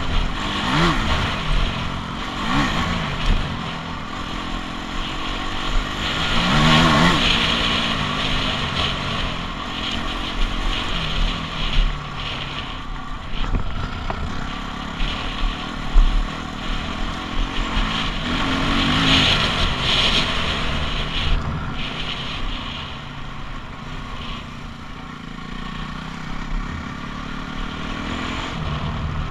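Dirt bike engine revving up and falling back several times as the bike rides along, loudest about a third of the way in and again about two-thirds in, over a constant rushing noise.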